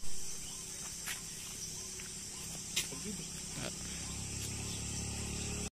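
Insects shrilling steadily in roadside grass and fields, over a low steady hum, with a few faint clicks and a brief bump right at the start.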